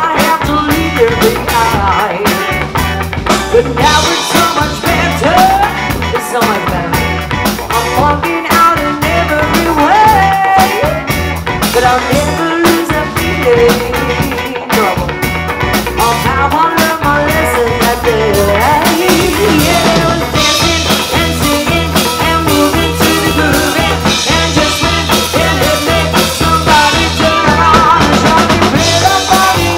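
Live rock band playing: bass guitar, electric guitar and drum kit with a steady beat, and a woman singing lead over them.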